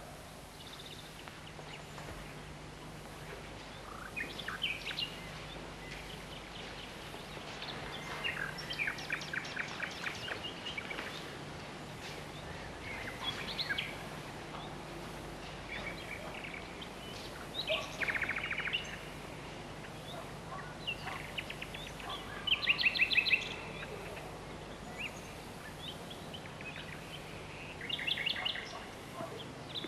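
Small songbirds chirping and trilling in short phrases every few seconds, over a faint steady low hum.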